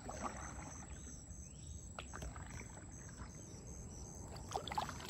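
Kayak paddle dipping into calm water with soft splashes and drips. Insects chirp in the background in a steady high pulse, about three chirps a second.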